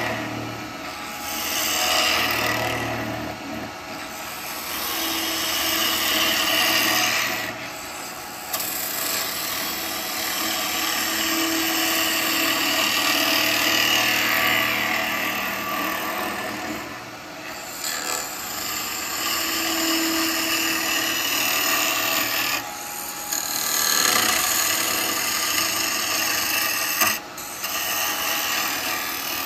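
Wood lathe spinning an alder blank while a turning tool hollows out its inside, cutting in long passes that swell and ease off, with a few brief breaks between passes.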